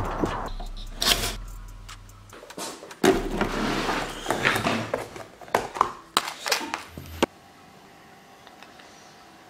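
Handling noises: knocks, clicks and rustling as bags and boxes are shifted into a car boot, then clatter of a plate and food packaging handled on a table. About seven seconds in the sound drops suddenly to faint room tone.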